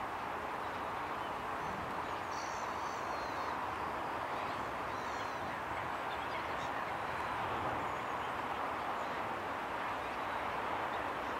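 Steady outdoor background noise, with a few faint, high bird chirps about two seconds in and again around five seconds.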